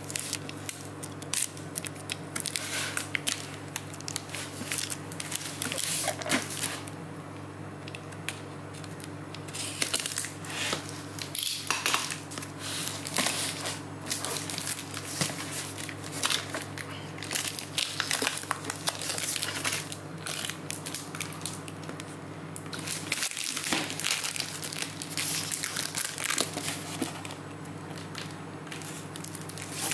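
A cardboard shipping box and its packing tape being torn open and handled: irregular crackling, rustling and tearing of cardboard and tape, over a steady low hum.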